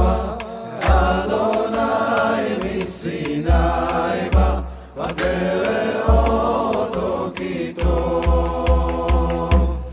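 Sacred Hebrew song (piyyut) of the Moroccan Saharan tradition, sung as a chant by a vocal ensemble over deep drum strokes. Near the end the drum plays a quicker run of about five strokes.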